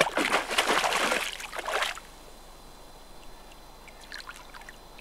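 A hooked fish thrashing at the surface of the water, loud splashing for about two seconds, then a few faint small splashes as it is played close in.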